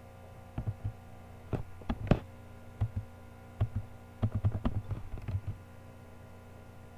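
Scattered sharp clicks and taps from working a computer's keyboard and mouse, irregular and bunched in a quick run about four to five seconds in, over a steady low electrical hum.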